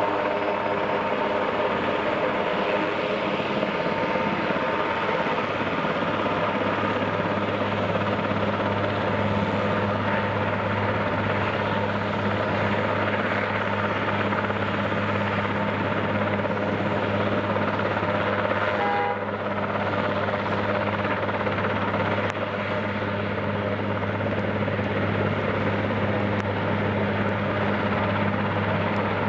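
AS532 Cougar helicopter running on the ground with its rotors turning: a steady turbine and rotor noise over a constant low hum.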